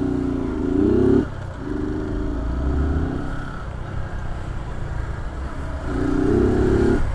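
Small motorcycle engine accelerating in three pulls, its revs rising each time and then dropping off sharply, about a second in and again at about three and a half seconds, before a last rising pull near the end; a low engine and road rumble runs underneath.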